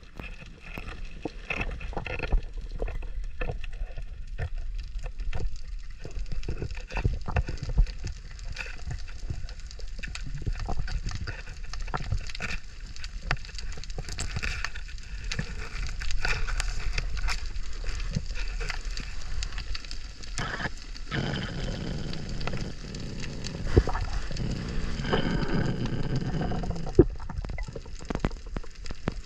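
Underwater sound on a reef, heard through a camera housing: a constant crackle of sharp clicks over a low rumble of moving water, with a louder rushing stretch about two-thirds of the way through.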